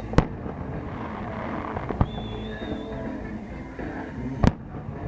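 Three sharp fireworks bangs a couple of seconds apart, over music playing. A short high whistling tone follows the second bang.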